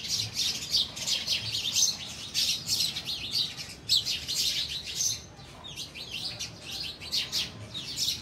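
House sparrows chirping, many calling over one another in a busy chatter that thins out a little after about five seconds.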